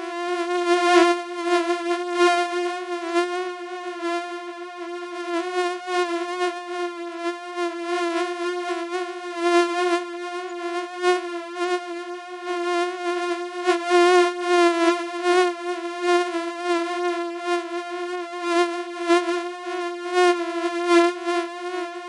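Mosquito wingbeat buzz: a steady high-pitched whine with a slight waver in pitch, swelling and fading in loudness as it goes.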